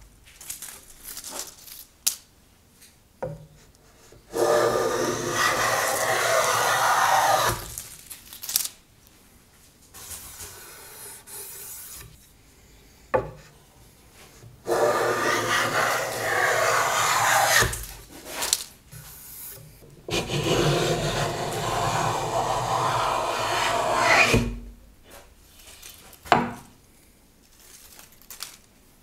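Handmade wenge-wood hand plane cutting along the edge of a board, a rasping swish as it lifts long shavings. Three long full-length strokes of a few seconds each, with shorter strokes and a few sharp knocks between them.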